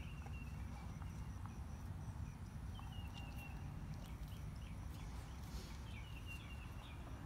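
A small bird chirping in three short runs of quick high notes, about three seconds apart, over a low steady rumble.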